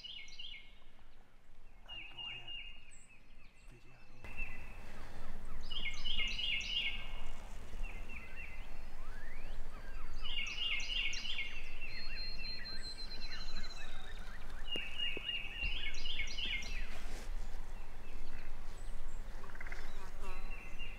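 Wild turkey tom gobbling several times, a rattling call about every four to five seconds, over steady outdoor background noise.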